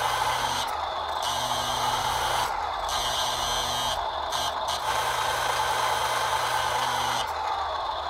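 Hydraulic pump of a ScaleART RC model Palfinger loading crane running steadily as the boom moves and lowers the grab. It cuts out briefly about four times.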